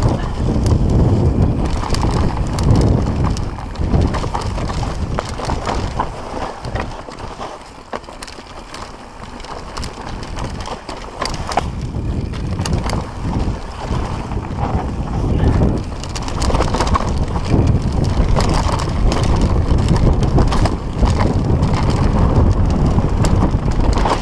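Mountain bike descending a dirt trail at speed: tyres rolling over dirt and roots, the bike rattling and clicking over bumps, with wind rushing over the microphone. It eases off for a few seconds around the middle, then picks up again.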